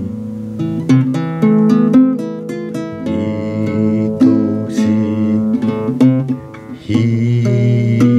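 A man singing an enka ballad, accompanying himself on a strummed and plucked acoustic guitar.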